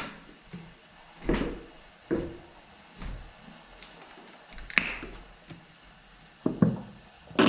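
Scattered knocks and clatter of kitchen things being handled, about half a dozen separate hits a second or so apart.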